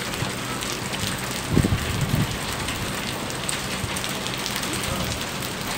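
Heavy rain falling steadily on a wet street, with two low thumps about a second and a half to two seconds in.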